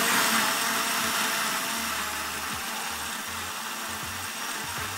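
Countertop blender motor running steadily, whipping whole eggs and vanilla until pale and frothy.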